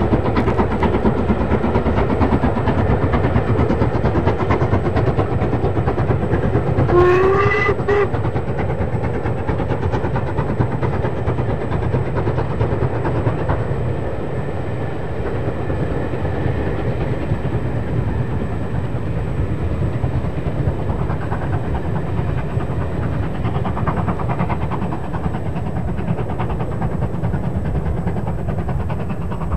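LMS Stanier Black 5 4-6-0 No. 5407 working hard with a passenger train, its exhaust beating fast and steadily. The locomotive's whistle sounds once, briefly, about seven seconds in, and the exhaust grows a little quieter in the second half.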